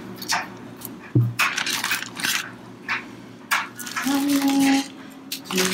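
Raw shrimp being peeled by hand: the shells crackle and snap in short, irregular clicks, with small clinks against the bowl. A brief pitched whine sounds about four seconds in.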